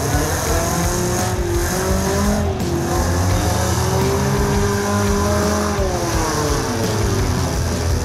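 Several demolition derby cars' engines revving and running together, their pitches rising and falling as the cars accelerate and back off.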